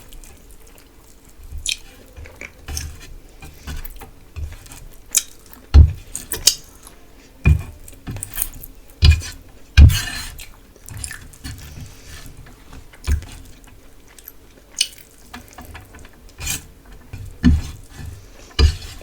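Close-miked eating: wet chewing and mouth clicks, with smacks and light knocks coming at irregular intervals of about a second.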